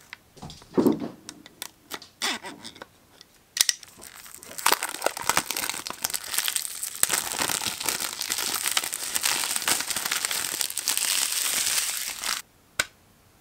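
Cellophane shrink wrap being peeled off a CD jewel case and crumpled, a dense crackling that starts about four seconds in and stops suddenly near the end. Before it come a few light scrapes and clicks on the plastic case.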